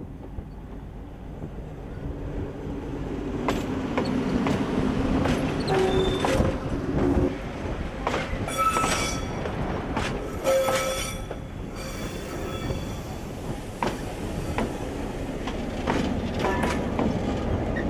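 Passenger train rolling past close by: steel wheels clicking over the rail joints, with short high wheel squeals through the middle. Near the end the low running sound of a diesel locomotive builds as it draws level.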